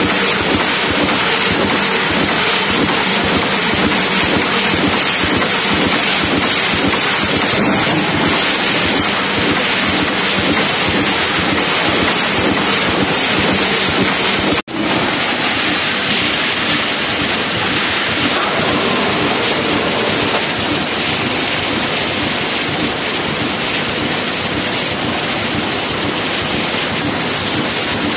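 A JAGER GD6 mesh welding line running: a loud, dense, steady industrial clatter and rumble, broken by a brief dropout about halfway through.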